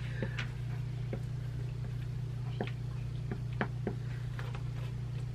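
Marker writing on a small handheld answer board: irregular small taps and clicks over a steady low hum.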